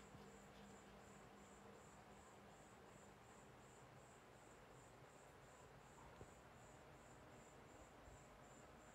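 Near silence: faint room tone with a soft, high-pitched chirp repeating evenly, about three times a second.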